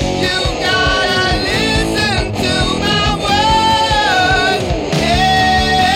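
Heavy metal recording: distorted electric guitar lead playing fast falling runs and held, bent notes with vibrato, over bass and drums.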